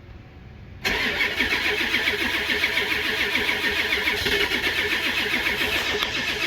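Diesel truck engine starting about a second in and then running steadily with a fast, rough pulsing.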